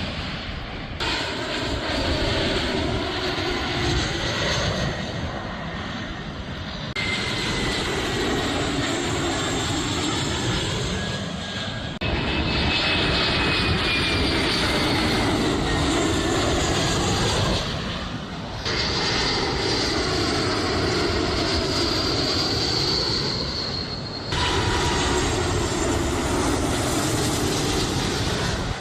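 Jet airliner engines running close by, heard in six short clips that change abruptly every few seconds; in several a high whine slides slowly down in pitch.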